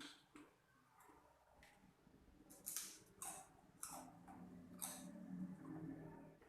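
Someone biting and chewing crunchy spicy banana chips: a string of short, crisp crunches, the loudest bunched in the middle.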